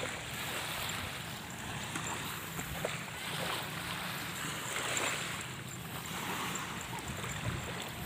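Small surf washing on a sandy beach, rising and falling in slow swells, with wind on the microphone.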